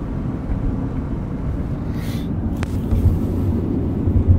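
Road and engine rumble inside a moving vehicle's cabin, steady and low, with a brief hiss about two seconds in.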